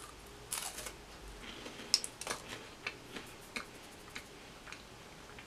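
Crisp Manner hazelnut cream-filled wafer bitten with a crunch about half a second in, then chewed with a string of faint, irregular crunchy clicks.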